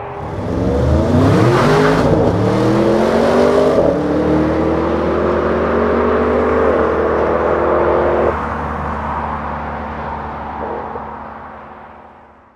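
A stock Audi RS7's 4.0-litre twin-turbo V8 accelerating hard, its exhaust note climbing in pitch with two quick upshifts about two and four seconds in. It then pulls more steadily until it drops off about eight seconds in, and the sound fades away.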